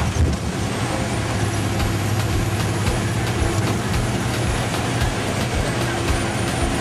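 Bus engine running at road speed, heard from inside the cabin, with frequent rattles and knocks from the body over a steady drone.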